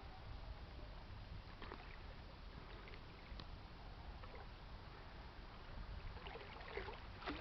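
Faint, steady low rumble of a lake freighter's engines, with a few faint short higher sounds near the end.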